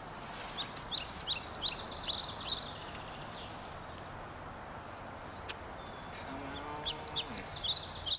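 A wild bird chirping: quick runs of short high chirps, pausing for a few seconds in the middle and starting again near the end, over a steady outdoor background hiss.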